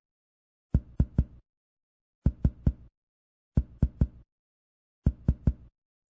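Chest percussion on a patient's back: a finger striking another finger laid flat on the chest wall. There are four sets of three quick taps, about a second and a half apart. The examiner is percussing down the scapular line during a held deep breath, listening for where resonance changes to dullness at the lower border of the lung.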